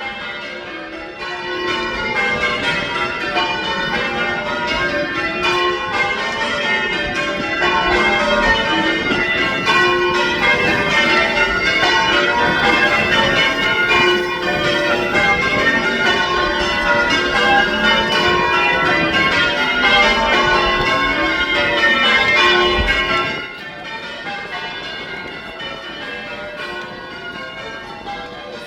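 Church bells pealing, several bells struck in quick overlapping succession so that their ringing tones blend. About 23 seconds in, the ringing drops sharply in level and carries on more faintly.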